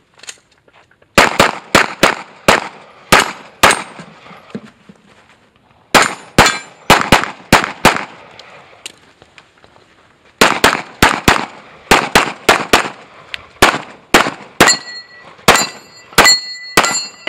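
Pistol shots fired in rapid strings during an action-shooting stage: a string of about eight shots, a pause, about six more, a longer pause, then a long run of quick shots. In the last few seconds steel targets ring with a metallic ding after the hits.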